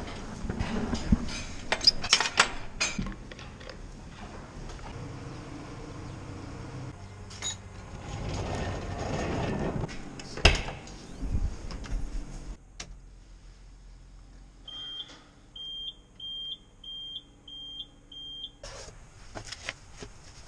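Clattering and knocks, then one loud knock about halfway. Near the end, the warning beeper in a John Deere 5085M tractor's cab sounds six short, high beeps in quick, even succession.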